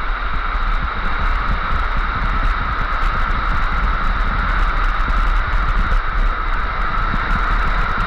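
Several small waterfall cascades pouring down a rock face into a plunge pool, making a steady, loud rushing hiss, with a low rumble underneath.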